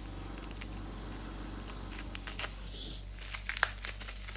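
Plastic bubble-wrap packaging being cut and torn open by hand, with faint scattered crinkles and clicks and then a denser burst of crackling and tearing a little after three seconds in. A steady low hum runs underneath.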